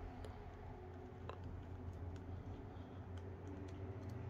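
Faint, scattered ticks of a small screwdriver working the last tiny screw out of a Samsung A21s smartphone's frame, over a low steady hum.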